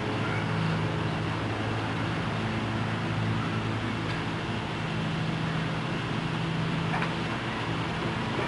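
A steady, unchanging mechanical hum with a low drone and an even hiss over it.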